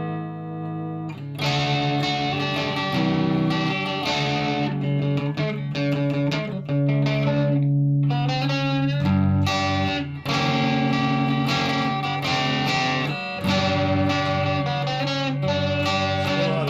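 Gibson Flying V electric guitar being played, a run of chords and notes that ring and change every second or so.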